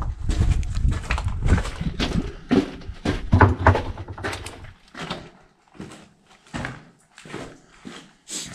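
Footsteps crunching on rubble and concrete inside a bunker tunnel, at a walking pace of about two steps a second. A low rumble underneath stops about halfway through.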